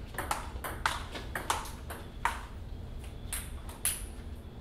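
Table tennis rally: the celluloid ball clicking off the paddles and bouncing on the table several times a second, stopping a little past halfway, followed by two scattered ticks near the end.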